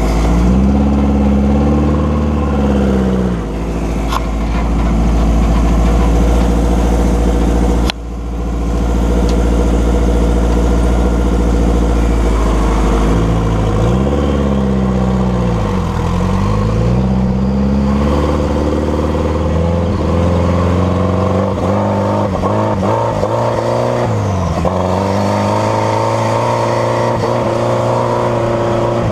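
Subaru EJ207 2.0-litre turbocharged flat-four engine of a sand rail, running under light throttle while the rail is driven. The revs rise and fall several times through the middle stretch, then hold steadier near the end.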